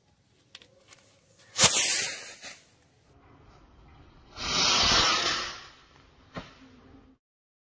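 Diwali firework rocket launching: a faint fizzing from the lit fuse, then a sudden loud rushing hiss about one and a half seconds in that lasts about a second. A second, longer hiss follows a few seconds later, and a short click comes near the end.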